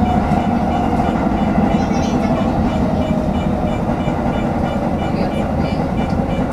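Toyo Rapid Railway commuter train running through a station: a steady rumble of wheels on rails under a motor whine that slowly falls in pitch as the train slows.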